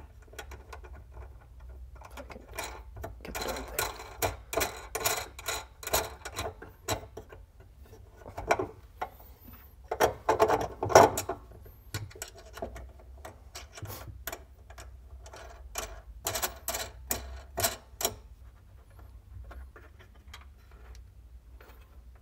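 Wing nuts being turned by hand onto threaded bolts to clamp a metal mounting bracket: runs of quick small metallic clicks and rattles with pauses between. The clicks are loudest around the middle and thin out near the end.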